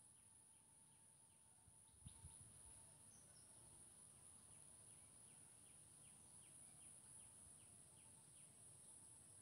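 Near silence: faint background with a steady high whine and faint chirps repeating a few times a second, and a soft thump about two seconds in.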